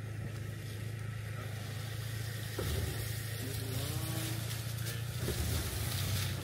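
Toyota Tacoma's engine running at low revs as the truck crawls forward out of a sandy rut, a steady low hum that gets a little louder about two and a half seconds in.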